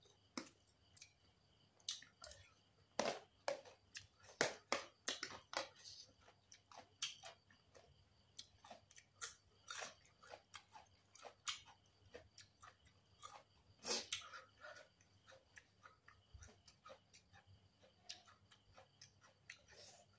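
A person chewing food, with irregular sharp clicks and crunches from the mouth, the loudest about fourteen seconds in.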